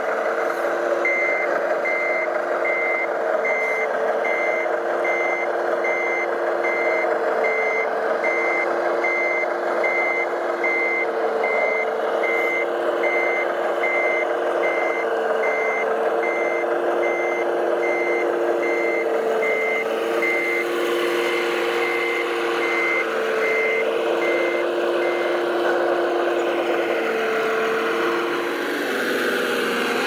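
Reversing alarm on a radio-controlled model truck beeping in an even, steady train over the whine of the model's motors and gears, with a lower tone pulsing on and off about every two seconds. The beeping stops a few seconds before the end.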